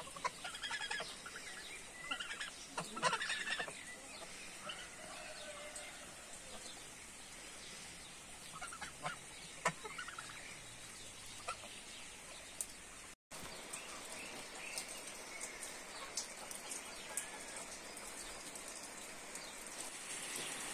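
Domestic geese honking and chickens clucking as they crowd around their feed, with the calls thickest in the first few seconds and thinning out later, over a steady hiss of rain.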